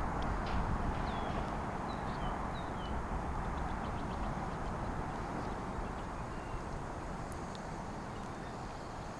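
Steady rush of flowing river water, high after days of rain, with a few short falling bird chirps in the first three seconds.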